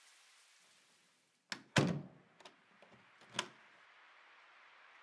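A door: a sharp latch click, a heavy thud just under two seconds in, a few small clicks, then a second thud. The steady rain fades out just before.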